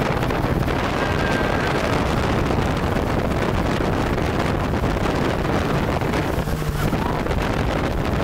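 Open dune buggy driving across sand dunes: its engine runs with a steady low rumble under heavy wind buffeting the microphone.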